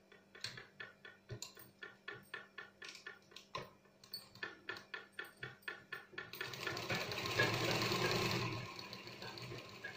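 Black domestic sewing machine stitching through fabric, ticking slowly at about three to four stitches a second, then running faster and louder for about two seconds past the middle before slowing back to slow ticking.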